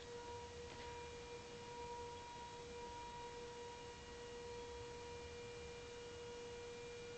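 Faint, steady droning hum on one low pitch, with a higher tone above it that swells and fades. This is the unexplained hum that seems to come from the whole sky rather than from any one place.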